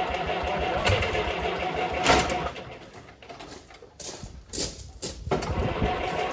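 International A414 tractor engine being cranked over by its starter motor, a steady whirring churn that stops about two and a half seconds in. A few short knocks follow in the pause, and the cranking starts again near the end.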